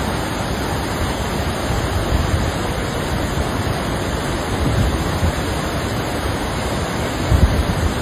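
Steady rushing of a shallow, rocky river, with wind rumbling on the microphone that swells near the end.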